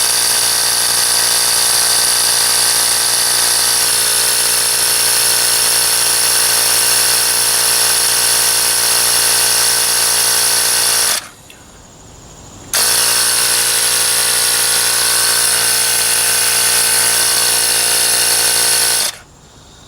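Ryobi P737 18-volt cordless tyre inflator's compressor running steadily while pumping up a car tyre toward 35 psi. It stops briefly about eleven seconds in, runs again, and shuts off near the end.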